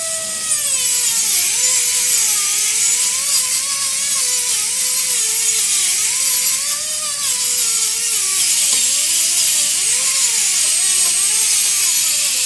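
Dynabrade 1 hp straight-line air pencil grinder running with an abrasive polishing wheel against ornate metalwork: a steady whine that wavers up and down in pitch, dipping several times, over a strong hiss of exhaust air and abrasion.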